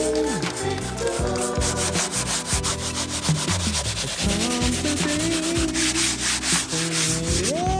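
Hand scrubbing of a foamed interior door panel, a scratchy rubbing that gets brighter for about a second near the end, under a song with a sung melody and a fast, steady beat.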